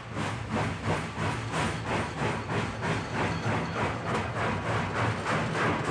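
Steam locomotive chuffing in a steady rhythm of about four chuffs a second, each chuff a burst of hiss, over a steady low rumble.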